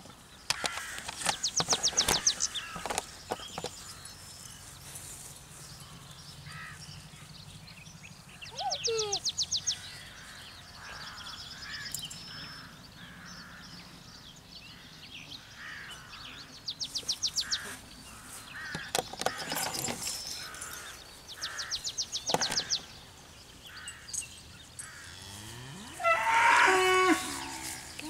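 Cattle mooing once near the end, a louder call with several tones. A short, rapid rattling call comes four times during the quiet stretch before it, over faint outdoor background.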